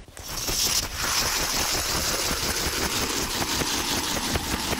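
Hand-cranked ice auger drilling into thick ice: a steady grinding rasp of the cutting blades chewing through, building up within about the first second and then holding an even level.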